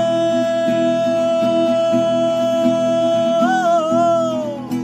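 Song with strummed acoustic guitar: a male singer holds one long note, breaks into a wavering turn about three and a half seconds in, then lets the note fall away near the end.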